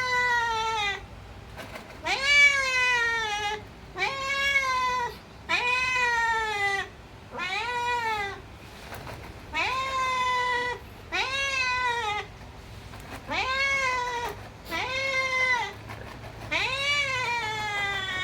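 Domestic cat meowing over and over, about ten drawn-out meows of roughly a second each with short gaps between, each rising then falling in pitch. This is a hungry cat's begging for food.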